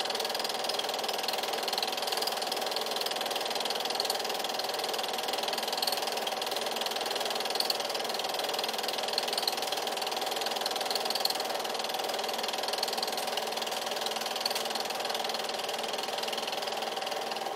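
8mm film projector running: a steady mechanical whirring clatter that holds unchanged throughout.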